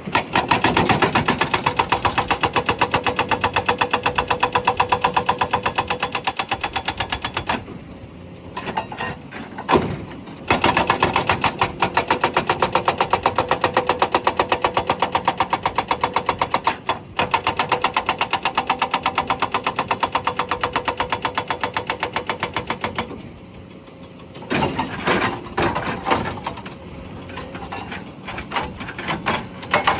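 Hydraulic breaker on a Komatsu PC200 excavator hammering rock in a fast, even stream of blows. It stops twice for a few seconds and comes back in shorter, uneven bursts near the end.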